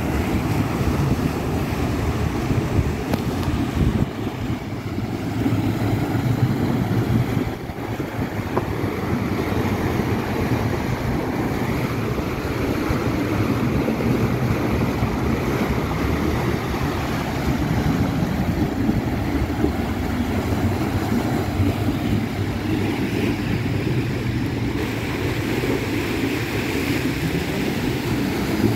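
Water from a burst pipe gushing up and churning over flooded ground, a steady rushing noise, mixed with cars driving through the floodwater and some wind on the microphone.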